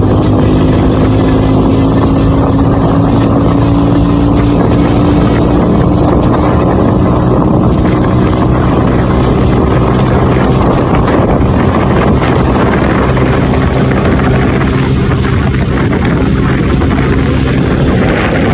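Motorcycle engine running steadily while riding, its pitch rising slightly in the first few seconds, with wind rushing over the microphone.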